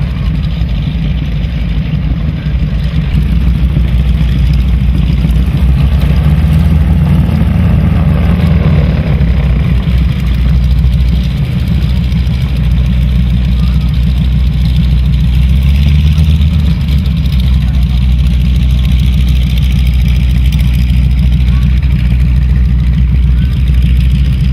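North American Harvard trainer's Pratt & Whitney R-1340 nine-cylinder radial engine running at taxi power with its propeller turning: a loud, steady, deep engine sound that rises briefly twice as the throttle is opened.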